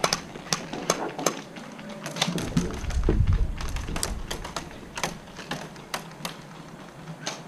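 Irregular sharp clicks of airsoft guns firing, about two or three a second, with a low rumble of movement close to the microphone between two and three and a half seconds in.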